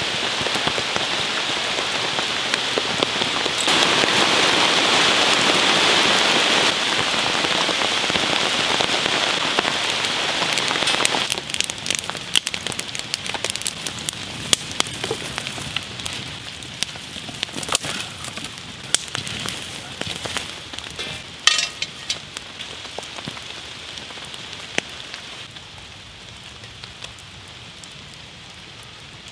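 Steady rain falling, breaking off suddenly about eleven seconds in. After that a wood campfire crackles, with scattered sharp pops and snaps that thin out near the end.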